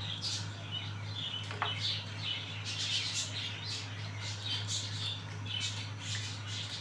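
Small birds chirping in quick, irregular bursts over a steady low hum, while a steel ladle stirs water, meat and onions in a steel pot.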